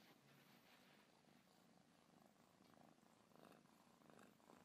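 Kitten purring faintly in repeated swells.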